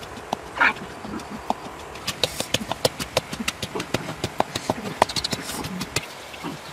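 Dogs play-fighting: low growling, with a loud yelp about half a second in and many short, sharp yips and clicks through the middle seconds.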